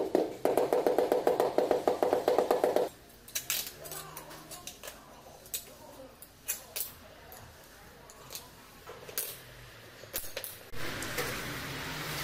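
A rubber mallet tapping rapidly on a large ceramic floor tile to bed it into the adhesive: a quick, even run of hollow taps for about three seconds. Then scattered light clicks and knocks as plastic tile-levelling clips are fitted along the joints, and a rough scraping near the end.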